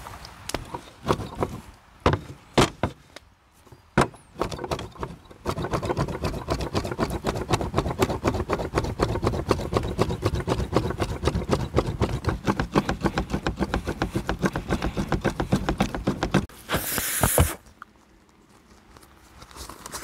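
Lamb being minced by hand with a large curved two-handled mincing knife (zırh) chopping on a wooden board: a few separate chops, then a fast, even rocking chop at several strokes a second for about ten seconds. It ends with a brief rasping noise.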